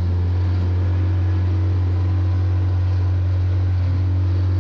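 The 30 hp outboard motor of an inflatable boat under way, running at a steady low drone, with wind and water noise, heard from aboard the boat.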